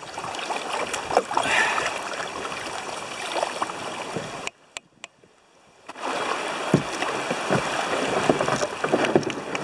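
River water rushing and splashing around a kayak as it runs a stretch of rapids, cutting out abruptly for a second or so about halfway through, then resuming.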